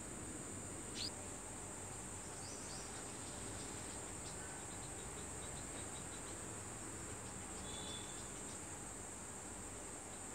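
Steady high-pitched drone of insects, cricket-like, with a few short bird chirps over it: a sharp chirp about a second in, small clusters of chirps and faint ticks in the middle, and a brief whistled note near the end.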